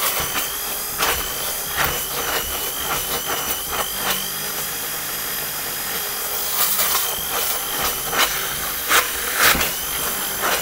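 Bamix hand blender running at low speed in a plastic bowl of Yorkshire pudding batter: a steady, slightly wavering motor whine, with a few sharp clicks scattered through it.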